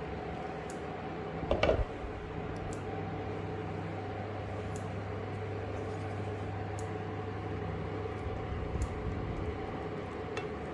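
Steady hum of an electric hob heating a pot of rice simmering in broth, with sparse faint pops. A single knock comes about one and a half seconds in.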